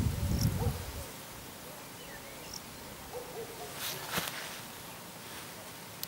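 Low rumbling noise for about the first second, then quiet outdoor ambience with a few faint, short bird chirps and one sharp click a little after halfway.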